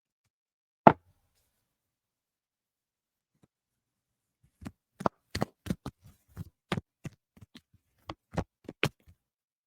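Tarot cards being handled and shuffled: one sharp tap about a second in, then a run of irregular card slaps and taps over the last five seconds.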